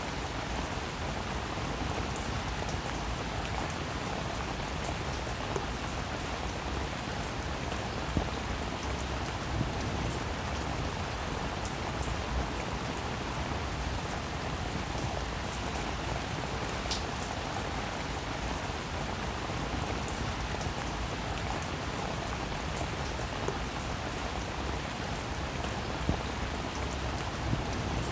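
Steady rain falling on a surface, an even hiss with many small drop ticks and a few louder single drops scattered through.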